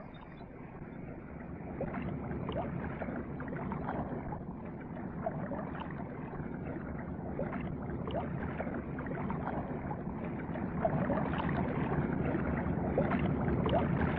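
River rapids rushing: a steady wash of whitewater that grows gradually louder.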